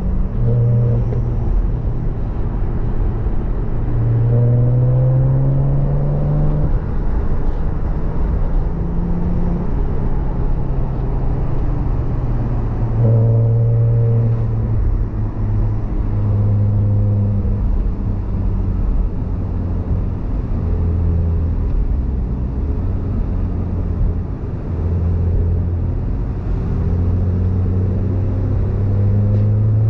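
Porsche Boxster S 987.2's 3.4-litre flat-six engine under way, pulling up through the revs in several long rises with drops in pitch between them as it changes gear, over a steady rushing noise.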